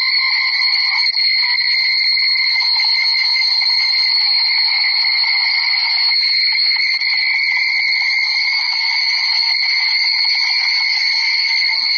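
Steady high-pitched drone that stays at one pitch without a break: sneeze audio digitally processed into a continuous tone.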